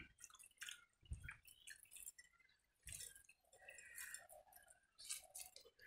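Near silence with faint scattered wet clicks and squishes: fingers mixing and scooping water-soaked rice (pakhala) in a steel bowl.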